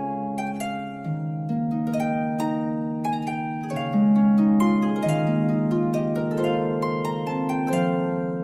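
Background music of plucked harp-like strings, a melody of quick notes over held low notes.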